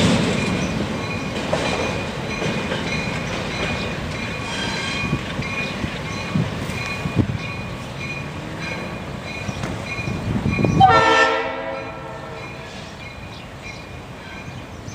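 Train going by with wheels clicking over rail joints while a bell rings steadily, then a short blast on the locomotive's Leslie air horn about eleven seconds in, after which the train sound fades.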